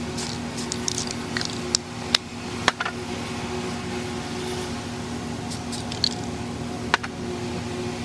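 Rust-Oleum camouflage spray paint hissing from an aerosol can in several short spurts, with a few sharp clicks between them. A steady low hum runs underneath.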